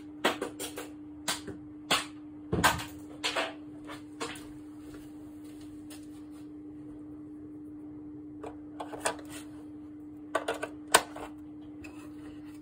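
Sharp plastic clicks and knocks as AAA batteries are fitted into a Texas Instruments Voyage 200 calculator's battery compartment and the calculator and its cover are handled on a wooden board. There is a quick run of clicks in the first few seconds, a pause, then more clicks near the end, the sharpest about eleven seconds in, over a faint steady hum.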